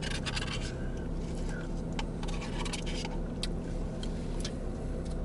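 A spoon scraping and clicking against the bottom of a nearly empty ice cream cup, scooping out the last of a Blizzard, as a run of quick strokes that thins out after the first second, over a steady low hum.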